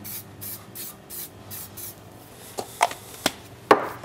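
Short puffs of aerosol spray fat into small metal brioche molds, about three a second, followed by a few sharp knocks of the metal molds being set down on the wooden worktop, the loudest near the end.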